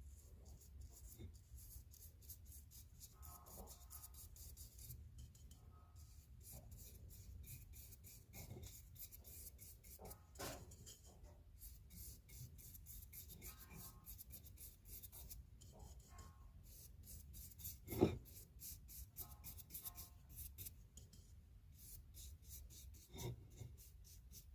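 Faint, rapid scratching strokes of hand abrading work on a steel blacksmith punch, with one knock about eighteen seconds in.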